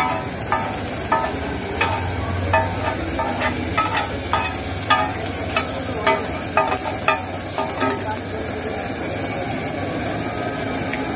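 Steel cleaver and spatula clanking against a flat iron griddle, about two ringing strikes a second, as vegetables are chopped and turned in sizzling oil. The strikes thin out near the end.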